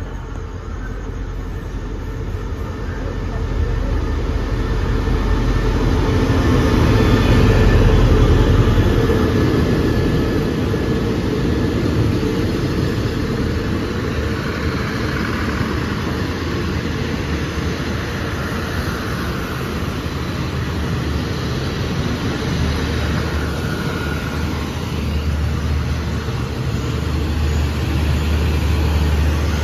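Diesel locomotive of an express passenger train drawing into a station, its engine loudest as it passes about eight seconds in, then the steady running of passenger coaches rolling past as the train slows.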